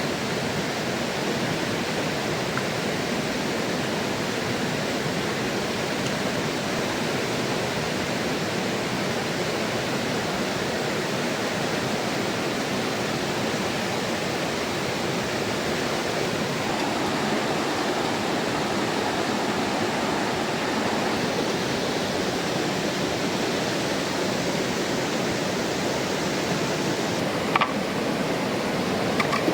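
Mountain river rushing steadily over rocks, with a couple of light clicks near the end.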